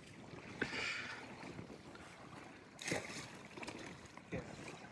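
Faint outdoor ambience of low wind and water noise, with a few brief soft sounds: a tick about half a second in, and short sounds near three and four seconds in.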